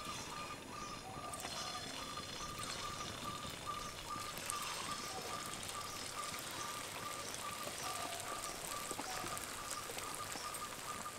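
Chhana (cottage-cheese) balls frying in hot white oil in a kadai: a steady crackling sizzle. A short high peep repeats steadily, about three times a second.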